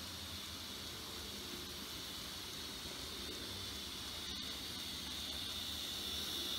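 Z-scale model trains running on a layout: a steady, faint, high whirring hiss from the tiny locomotive motors and wheels on the track, growing a little louder near the end.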